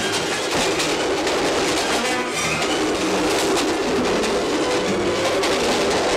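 Film score music over the steady running noise of a moving passenger train.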